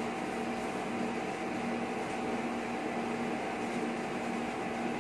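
Steady electrical hum and hiss from an idle karaoke amplifier and speakers, with a couple of faint steady tones under it.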